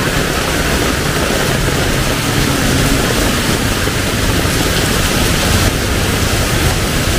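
Heavy rain falling in a steady, loud downpour, with a low rumble underneath.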